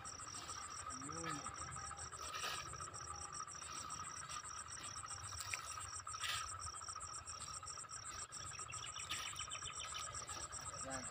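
Field insects chirping in a steady, fast, even pulse over a steady high drone. A few times a metal shovel scrapes into dry, crumbly soil.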